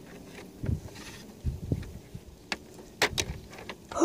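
Plastic Guess Who game board and pieces being handled: scattered clicks and taps, a few sharper ones in the last second and a half, with a few low thumps.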